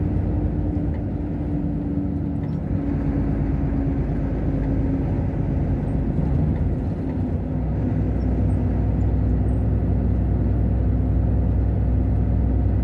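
Steady engine and road noise heard from inside a vehicle's cab while cruising on a highway, with a constant low drone; the deep rumble grows stronger about eight seconds in.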